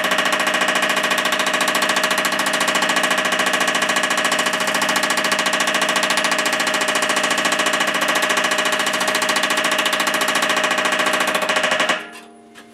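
Power hammer planishing 18-gauge sheet metal between a flat upper die and a bottom die with a flat spot, smoothing out the shrinks: a fast, even run of blows with a steady metallic ring. The hammer stops abruptly near the end.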